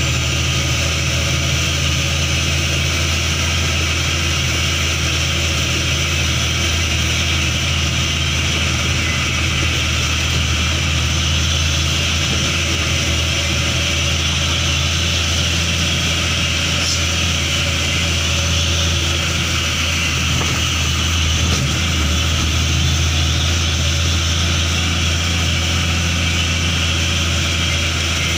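Vehicle engine running with a steady low drone, heard from inside the cab while driving, over a constant hiss of tyres on a rain-wet road.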